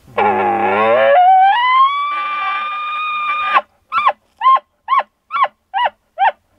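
Elk bugle: a low growl that rises into a long, high whistle, held and then cut off, followed by seven quick chuckles about two a second.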